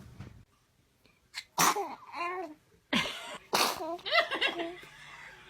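A baby sneezing several times, sharp sneezes starting about a second and a half in, with short voiced laughing sounds after them.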